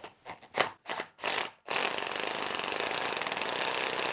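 Milwaukee impact driver boring into a wooden beam with a 1¼-inch speed-bore bit. It runs in a few short bursts, then about two seconds in settles into steady running, hammering as the bit cuts.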